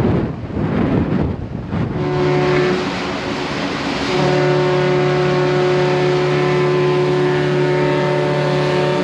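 The S.S. Badger's ship whistle sounds a short blast about two seconds in, then a long, steady blast of about five seconds, a low pitched chord of several tones. Before it, wind buffets the microphone.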